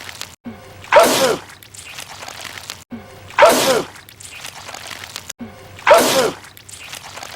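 A man's loud sneeze, the same one repeated three times about two and a half seconds apart, each a short falling cry that breaks into a hissing spray. It is a film clip looped end to end, with a brief drop-out at each join.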